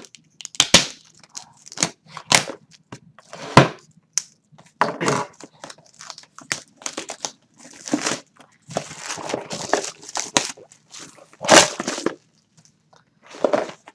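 Plastic shrink wrap being torn open and pulled off a cardboard box, crinkling and tearing in irregular bursts with sharp crackles.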